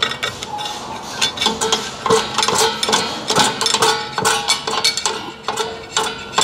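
Toyota Highlander rear brake rotor being turned by hand with its drum-in-hat rubbing on the parking brake shoes: repeated metallic scrapes with a ringing tone, and many small clicks. The shoes are being adjusted out against the drum.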